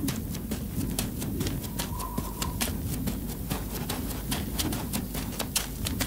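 Outdoor ambience over open fields: a steady low rumble of noise, with many irregular sharp clicks and crackles and a faint short call about two seconds in.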